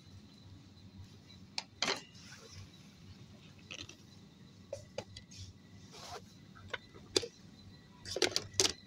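Plastic storage boxes, baskets and packaging being handled and shifted in a store bin: scattered light knocks and clicks, with a quick cluster of louder knocks near the end, over a low steady hum.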